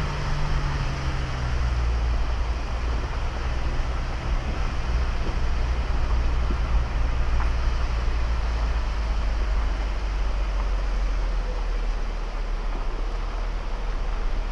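Off-road vehicle driving along a gravel mountain road, heard as a steady low rumble of engine and road noise; the engine note drops slightly about a second in.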